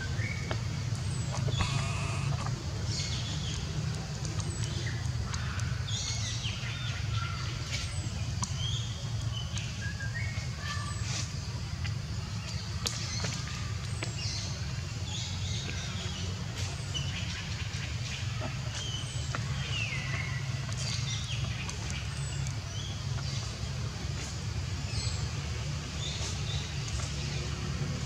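Many short bird chirps and calls, some falling in pitch, scattered over a steady low rumble.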